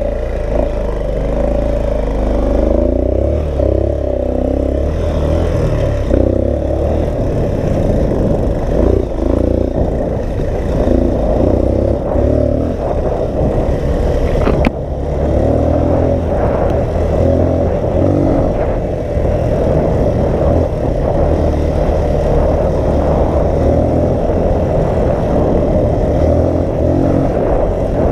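Dirt bike engine running steadily while riding along a rough dirt trail, with heavy wind rumble on the microphone. The engine note breaks briefly about halfway through.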